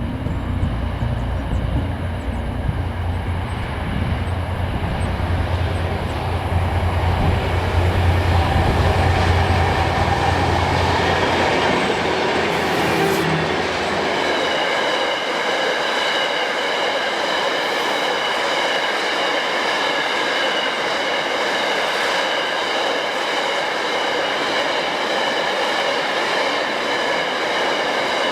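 Freight train passing close by: the deep rumble of the diesel locomotive fades out about halfway through, then the wagons roll past with steady rail noise and a high, steady ringing from the wheels.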